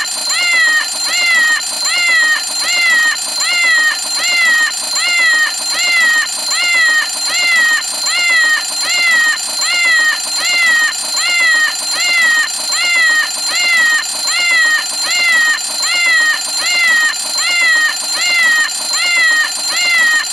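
Cartoon cat-faced novelty alarm clock going off: a cat meow repeated evenly, about five times every four seconds, each call rising then falling in pitch. A steady high ringing tone runs beneath.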